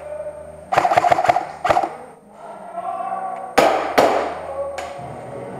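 Airsoft guns firing: a short rapid burst about a second in, then a few sharp single cracks around the four-second mark.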